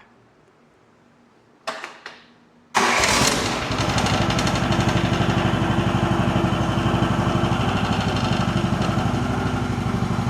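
Mini excavator engine starting abruptly, after a brief rasp, and then running loud and steady with an even pulse.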